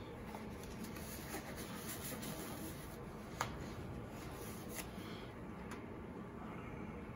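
Faint rubbing and rustling of nitrile gloves being pulled onto the hands, with one sharp click about halfway through, over low, steady room noise.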